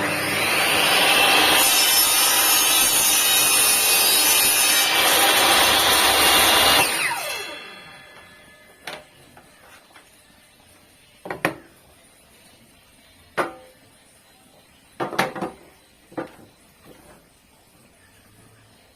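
INGCO TS15007 table saw switched on, its blade spinning up with a rising whine and then cutting wood for about seven seconds. It is then switched off, and the blade winds down with a falling whine. A few separate knocks follow as the wood or the saw is handled.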